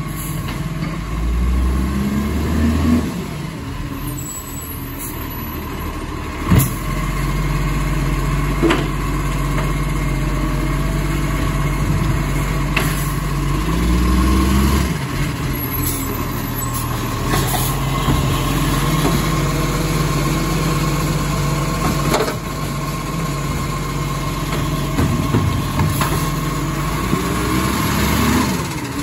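Iveco Acco side-loader garbage truck's diesel engine running close by, revving up twice with a rising pitch as the truck moves between bins. A steady high whine sits over the engine, and sharp knocks come every few seconds as the lifting arm handles the bins.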